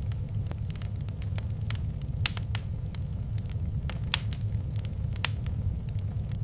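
Wood fire burning in a fireplace: a steady low rumble of the flames with irregular crackles and a few louder pops.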